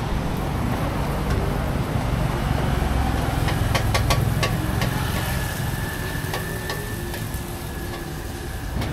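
Street traffic: motor vehicle engines running, a steady low rumble, with a few sharp clicks about halfway through.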